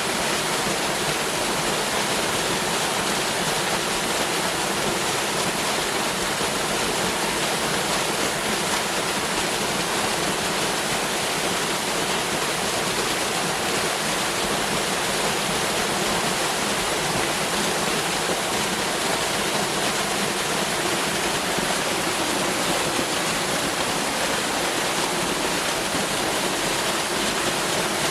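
Waterfall: a steady, even rush of falling water with no breaks or single splashes.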